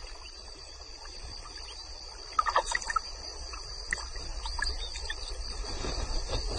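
Steady high insect chirring with a low outdoor rumble, and a few soft splashes and clicks of water from about two and a half seconds in as elephants wade through the shallows.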